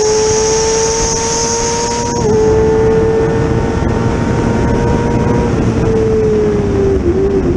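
Onboard sound of a race car at speed on a straight, engine under power with its note climbing steadily, over heavy wind and road noise. About two seconds in the note drops briefly as it shifts up, then climbs again. From about five and a half seconds in the note falls away as the driver lifts off, with a couple of short dips near the end.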